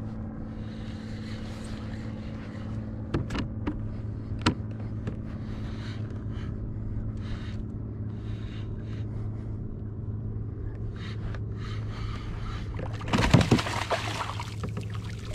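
Steady hum of a Minn Kota electric trolling motor on a kayak, with a few sharp clicks. A hooked scup splashes and thrashes at the surface beside the hull about thirteen seconds in.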